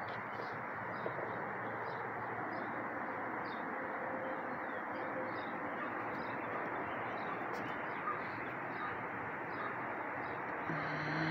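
Faint, evenly repeated chirping calls of a small animal, about two a second, over a steady outdoor hiss, with a short low hum near the end.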